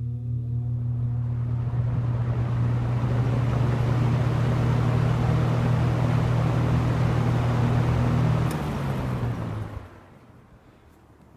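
1975 Galaxy (Lasko) 3714 two-speed box fan running on high: a steady motor hum under the rush of air from its blades, which are a bit out of balance. About eight and a half seconds in there is a click, and the fan winds down.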